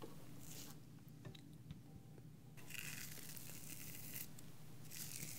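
Razor scraping through shaving cream close to a binaural microphone in a few short strokes with pauses between them: a mock face shave, working on one side of the face.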